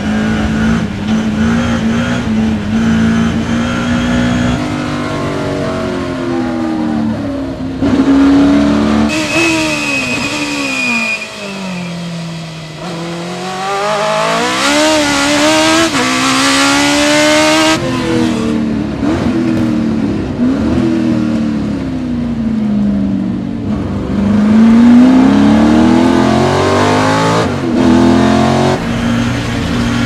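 Race car engines heard onboard, revs climbing and falling through upshifts, braking and downshifts. It starts with a BMW E30 M3 touring car's four-cylinder inside its cabin, with a short high tire squeal about nine seconds in. Midway it switches to a Lotus 87B Formula 1 car's Cosworth V8, whose revs dip and then rise steadily, before returning to the M3's cabin.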